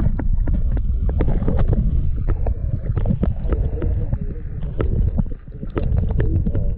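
River water heard through an action camera's housing held underwater: a deep, muffled rumble of moving water with many short sharp clicks and ticks, dipping briefly about five seconds in.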